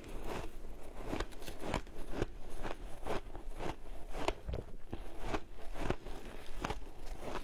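Shaved ice being chewed: a quick, irregular run of crisp crunches as mouthfuls of ice break between the teeth.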